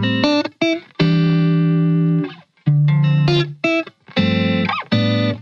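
Background music: short phrases of held chords, each cutting off abruptly with a brief gap before the next.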